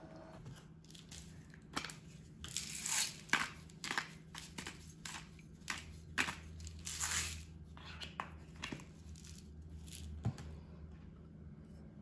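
A string of short scraping and crunching noises, about a dozen over several seconds, as a silicone spatula stirs liquid in a glass bowl and salt is added, over a low steady hum.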